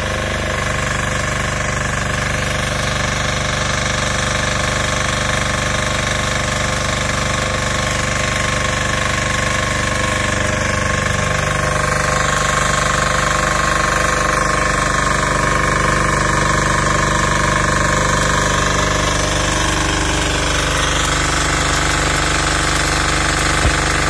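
MWG 6500 diesel welding generator running steadily with a knocking diesel clatter while powering stick welding. The hiss and crackle of the welding arc mix in.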